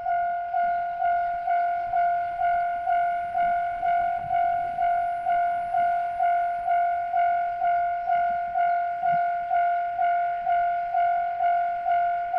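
Japanese railway level crossing warning bell ringing its steady ding about twice a second, each stroke dying away before the next: the crossing's alarm signalling that a train is approaching.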